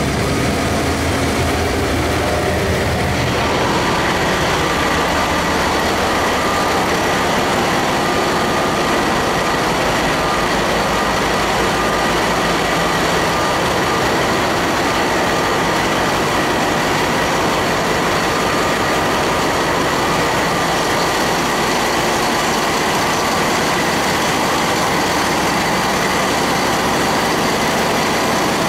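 GE 7FDM12 marine diesel engine running steadily in a ship's engine room: a loud, dense mechanical din with a steady high whine. The sound brightens about three seconds in.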